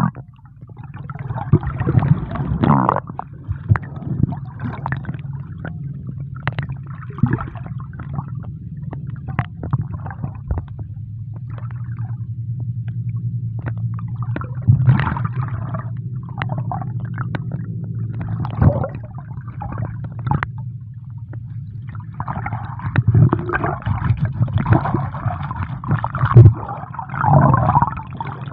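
Water heard through a microphone held under the sea: a steady, muffled low rumble with irregular gurgling and sloshing gushes as the water moves over the camera, busiest near the end.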